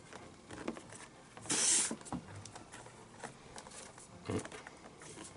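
Glove lace being threaded and pulled through the fingertip lace holes of a leather baseball glove: light rustles and taps, with one brief hissing rasp about a second and a half in as the lace is drawn through, and a soft knock near the end.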